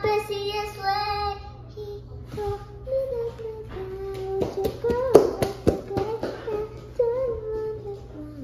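Young girl singing, holding long wavering notes, with a few sharp clicks about halfway through.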